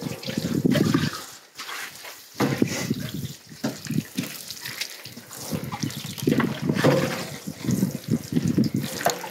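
Water poured from a plastic watering can, splashing onto the outside of an upturned bathtub in several spells with short pauses between.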